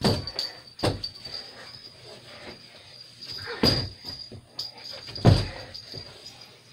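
Four dull thumps and knocks, the loudest about two-thirds of the way through, over a faint steady high-pitched tone.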